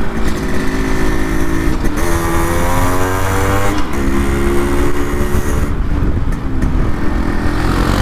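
Yamaha RX100's 98cc single-cylinder two-stroke engine under way and accelerating. Its pitch climbs from about two seconds in, drops sharply at a gear change a little before the four-second mark, then climbs again.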